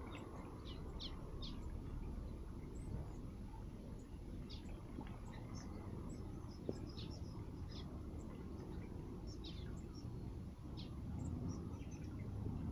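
Small aviary waxbills and finches giving short, high chirps and tweets, scattered irregularly, over a steady low background rumble.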